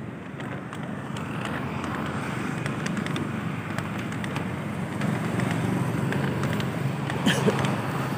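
Steady city road traffic, cars and vans passing on a busy street, with a brief sharper sound near the end.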